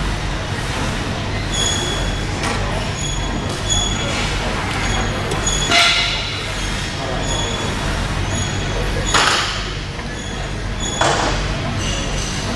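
Gym room sound with a steady low hum, short high squeaks that recur, and three clanks of exercise-machine metal, about six, nine and eleven seconds in.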